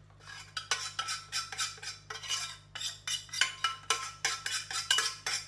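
A spoon scraping and knocking rapidly and irregularly against the inside of a stainless steel saucepan, several strikes a second with a metallic ring, as the melted wet ingredients are scraped out of the pan.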